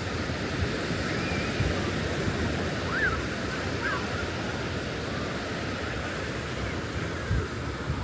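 Surf washing onto a beach as a steady rush of noise, with wind buffeting the microphone in low thumps. A few faint, short high calls rise and fall in the distance.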